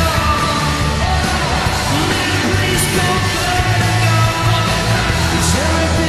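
Rock goal song with yelled and sung vocals over a steady driving beat, the music that follows the Canadiens' goal horn.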